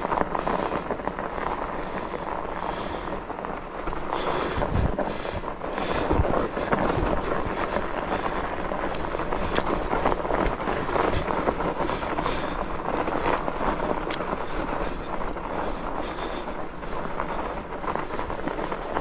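Norco fat bike being ridden over a snowy trail: a steady rush of its wide tyres rolling over snow, mixed with wind noise on the microphone.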